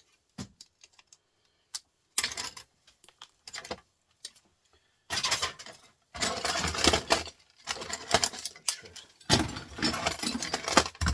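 Parts of a large printer being pulled apart and handled: irregular clicks, rattles and clatter of small metal and plastic pieces, coming in bursts of a second or two.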